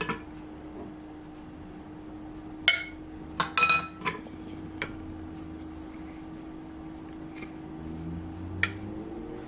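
A few sharp clinks of a glass bowl and utensils against a glazed serving dish, one about three seconds in and a quick cluster around three and a half seconds, with fainter ticks later, over a steady low hum.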